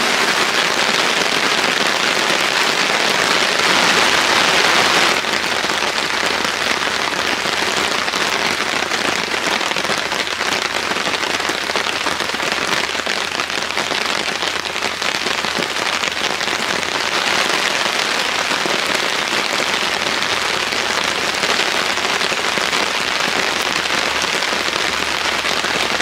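Heavy summer rain shower pouring steadily, a little louder for a couple of seconds about four seconds in.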